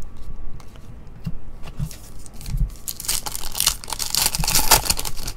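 Plastic wrapper of a Panini Legacy football card pack being torn open by hand: a crinkling rip about three seconds in, lasting about two seconds. Before it come light clicks of cards being handled.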